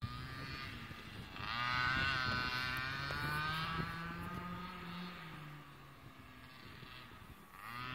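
Dirt bike engine revving on a motocross track at a distance. The revs climb about a second and a half in, hold and waver, then fade after about five seconds, and climb again near the end.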